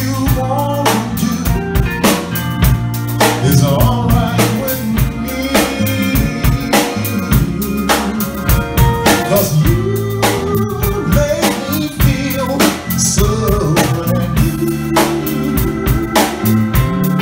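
Live band playing a Motown-style number: drum kit keeping a steady beat under electric bass, electric guitar and keyboards.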